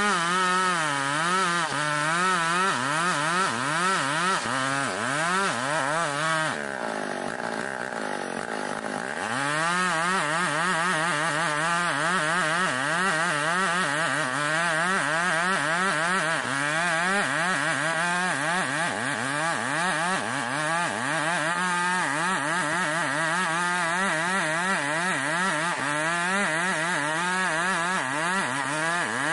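Chinese-made copy of a Stihl 070 two-stroke chainsaw with a blunt chain ripping lengthwise along an ironwood (ulin) beam, its engine pitch wavering up and down under load. A little over six seconds in the engine drops to a lower speed for about three seconds, then revs back up into the cut.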